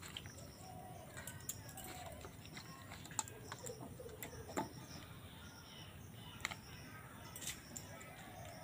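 Faint handling of a peeled papaya being rubbed and rinsed in a steel plate of water, with a few small clinks from the plate. A faint high chirp repeats in the background.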